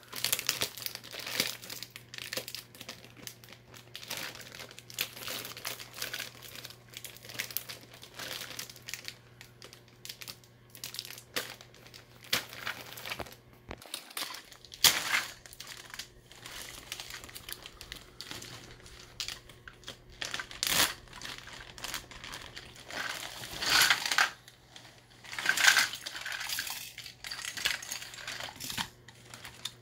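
Clear plastic zipper bag crinkling and rustling in irregular bursts as it is pulled open and handled, with a few louder crackles in the second half.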